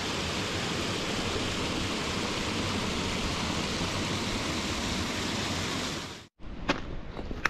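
Steady rush of a mountain stream or small waterfall, cutting off suddenly about six seconds in. After the cut come two sharp knocks in a quieter setting.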